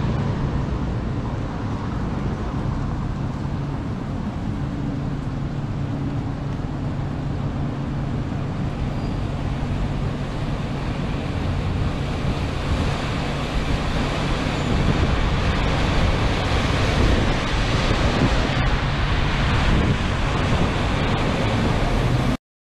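Steady rushing of wind and rain over a flooded street, with cars driving through the floodwater and their tyres throwing up spray. The rushing grows a little louder in the second half, and a low steady hum runs underneath for most of it.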